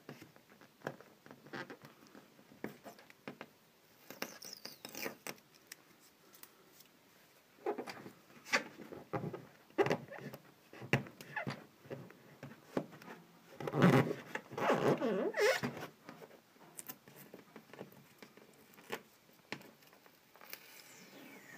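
A vinyl registration decal being picked and peeled off a snowmobile hood by fingernail, its warmed adhesive letting go in irregular short scratchy rips. The rips are loudest and come thickest about two-thirds of the way through.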